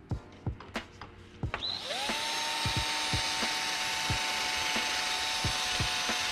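Ryobi cordless drill drilling at the roll pin in a short-throw shifter assembly. A few sharp clicks come first; about two seconds in, the drill spins up with a quick rising whine and then runs at a steady pitch, with irregular knocks through it.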